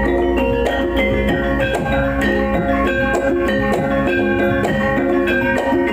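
Javanese gamelan music for a kuda kepang dance: struck bronze metallophones ring out a steady stream of notes over drumming.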